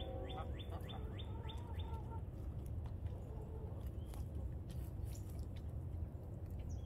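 Backyard hens softly clucking, over a steady low rumble. In the first two seconds a songbird gives a quick run of falling whistles.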